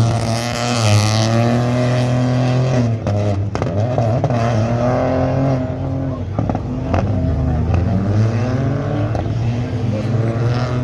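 Turbocharged rally car engine revving hard through gear changes, its pitch climbing and dropping several times, with sharp pops about three seconds in and again near seven seconds.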